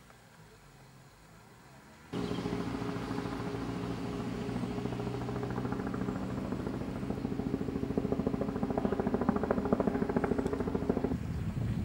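An engine running close by, a loud steady drone with a fast rhythmic chop. It starts suddenly about two seconds in, after faint quiet. The drone's tone drops away shortly before the end.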